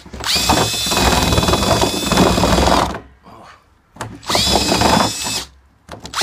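Cordless drill with an auger bit widening a hole in a plastic barrel that is still too small for the tap. It runs in two bursts, about three seconds and then about a second after a short pause, with a steady motor whine.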